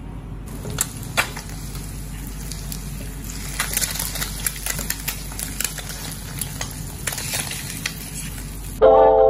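Egg sizzling in hot oil in a nonstick frying pan, with the clicks and scrapes of a slotted spatula against the pan as the egg is folded over. Piano music comes in loudly near the end.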